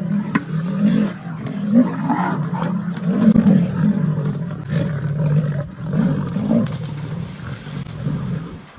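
A big cat growling and snarling without a break, in rough, uneven surges.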